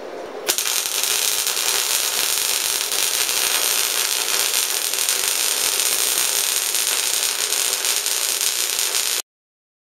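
Electric arc welding: the arc strikes about half a second in and crackles steadily, then cuts off suddenly near the end.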